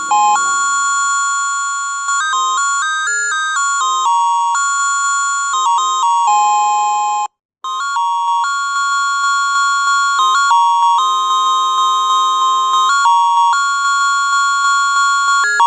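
Norwood Stella musical doorbell playing its electronic chime tunes, a high beeping melody with notes changing several times a second. The first tune stops about seven seconds in, and after a brief silence a second melody begins.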